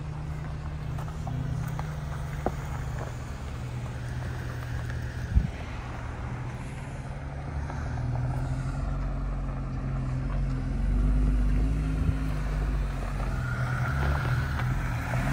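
Jeep Wrangler engine running as the vehicle drives slowly up a dirt track toward and past, growing louder as it nears. A single sharp knock comes about five seconds in.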